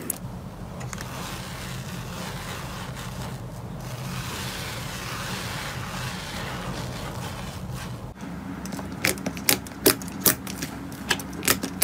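A hand stirring and squashing foamy cloud slime in a plastic bowl: a steady soft crackle of bursting foam. About eight seconds in it changes to glossy slime being pressed flat by hand, with a run of sharp wet pops and clicks.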